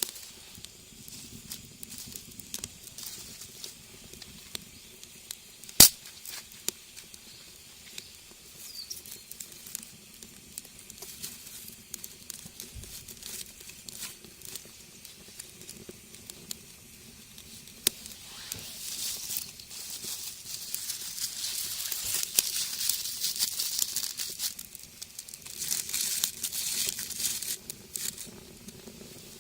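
Wood fire in a rocket stove crackling, with scattered pops and one sharp snap about six seconds in. A high hissing rush builds in the second half.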